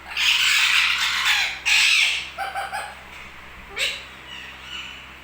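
Pet parrot screeching: two long harsh squawks, then three quick short calls and one more brief call a little later.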